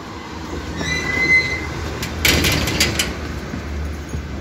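Children climbing into a car's back seat: rustling and knocking against the seats and door, with a brief high squeak about a second in and a burst of clattering a little past two seconds, over a low steady hum.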